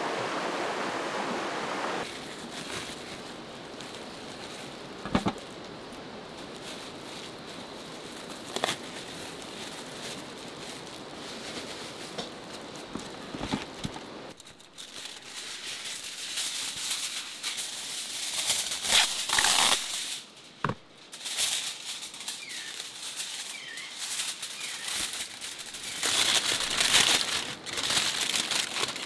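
Steady outdoor wash of rain and running water for about the first half. Then close-up rustling and crinkling from food being handled, ending in aluminium foil crumpling as pork ribs are wrapped in it.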